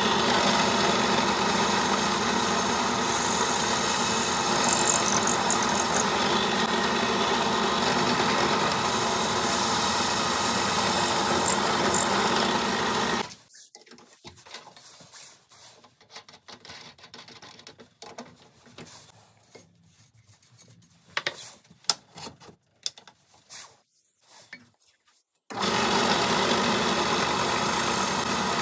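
Benchtop drill press motor running steadily while drilling holes through the wooden handle scales and steel tang of a knife. It stops about halfway through, followed by small clicks and taps of hands working the drill chuck, then the drill press starts up again near the end.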